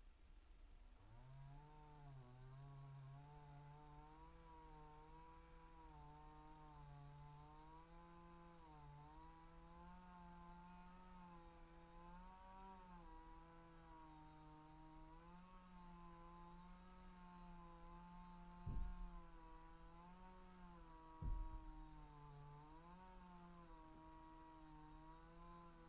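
Chainsaw running faint and fast, revving up about a second in, its pitch dipping and recovering again and again as it cuts wood. Two sharp thumps about two and a half seconds apart in the last third.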